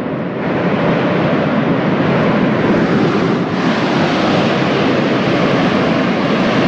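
Steady rushing roar from Mount Bromo's active crater as volcanic gas vents, a loud even noise with no breaks.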